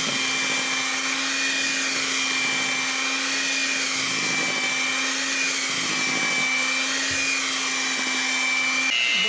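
Electric hand mixer running steadily, its beaters churning cake batter in a plastic bowl: a constant motor whine. The pitch steps about nine seconds in.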